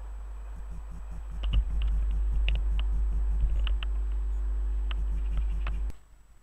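Heavy outdoor rumble, most likely wind on the microphone, with a steady low hum and scattered sharp clicks as a train approaches the platform. The sound grows louder about a second and a half in and cuts off suddenly near the end.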